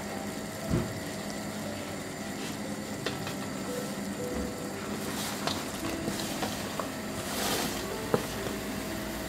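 Broth boiling in a stainless steel stockpot: a steady bubbling hiss with a few light knocks. About seven and a half seconds in, a brief rush as fresh tortellini slide off a tray into the pot.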